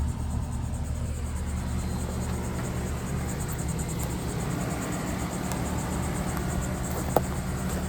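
Steady low machine hum with a light hiss over it, and one short click about seven seconds in.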